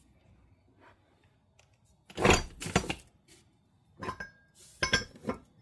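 Small metal engine parts clinking and clattering as they are handled and set down, in short bursts: one about two seconds in, then two more near the end, the second with a brief metallic ring.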